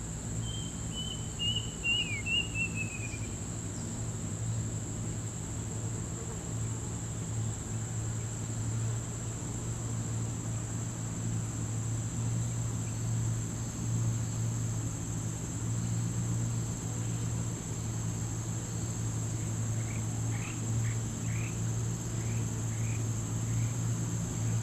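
Steady high-pitched insect drone over a low steady hum. A quick run of bird chirps sounds about a second in, and a few short bird notes come near the end.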